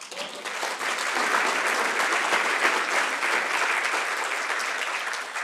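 Audience applauding, a dense patter of many hands clapping that swells within the first second and starts to die down near the end.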